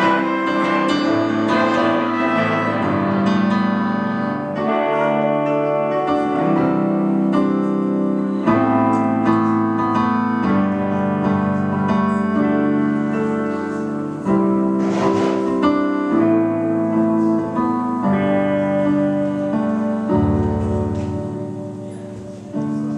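A small live band playing, with piano or keyboard chords to the fore, the sound fading away over the last few seconds as the song draws to its close.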